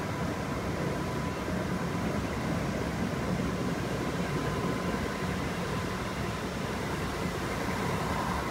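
Running noise of a Kintetsu 5800 series electric train heard from inside the passenger car: a steady rumble of wheels on rail. A faint high whine sits over it and grows a little louder near the end.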